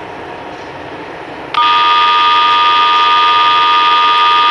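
Payphone handset tone: after a moment of street hiss, a loud, steady two-pitch electronic tone comes on suddenly about one and a half seconds in and holds without a break.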